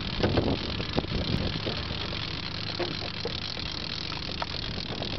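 Boat's outboard motor idling with a steady low hum, under a constant hiss of wind and water, with a few faint clicks.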